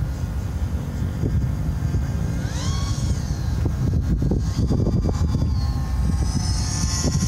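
Nitro glow engine of a Thunder Tiger radio-controlled model aircraft whining in a fly-by, its pitch swinging up and back down about three seconds in and a higher whine returning near the end. Heavy wind rumble on the microphone underneath.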